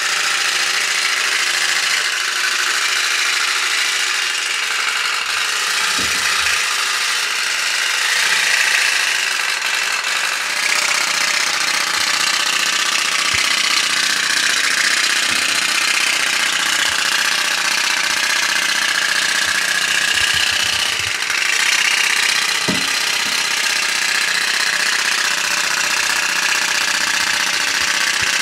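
Candle-powered put-put (pop-pop) boat running continuously with a rapid rattling putter. Its diaphragm boiler pops in and out as steam builds and condenses, pushing water out of the pipes and sucking it back in, which drives the boat forward.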